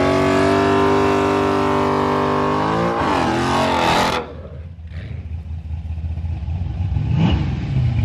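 A Dodge muscle car's V8 is held at high revs with the rear tyres spinning in a burnout, the pitch steady and then wavering. About four seconds in, the revs drop off abruptly to a low idling rumble.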